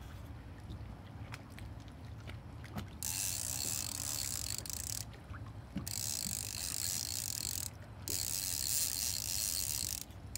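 Spinning reel's ratcheting drag buzzing as a fish pulls line off it in three runs, each one to three seconds long, starting about three seconds in. It is the sign of a fish having taken the live bait and running with it.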